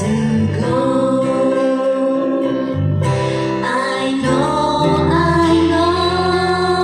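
A female voice singing a slow ballad over acoustic guitar accompaniment, with long held notes.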